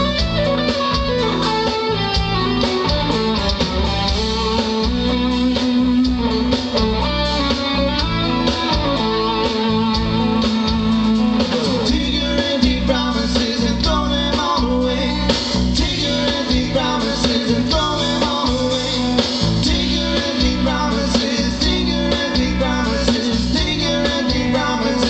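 Live rock band playing an instrumental stretch of the song: electric and acoustic guitars over bass and a steady drum beat.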